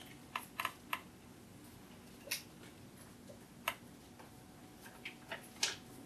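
Dry-erase marker writing on a whiteboard: short, irregular squeaks and taps, three in the first second, two single ones a little later, and a quick group of strokes near the end.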